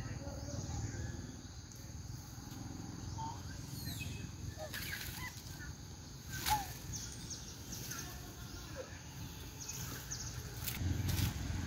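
Outdoor forest ambience: leafy branches rustling and creaking in scattered short clicks as a baby monkey climbs through them, with a sharper snap about six and a half seconds in. Short chirps come through over a low steady rumble.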